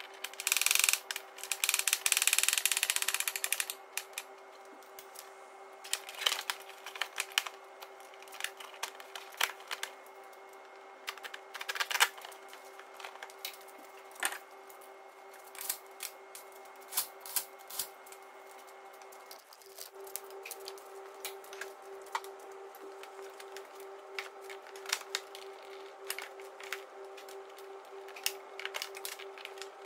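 Cordless impact driver running for about three seconds near the start, driving in wheel-arch liner or bumper fixings. After it come scattered clicks and taps of plastic trim and fasteners being fitted, over a faint steady hum that starts pulsing about two-thirds of the way in.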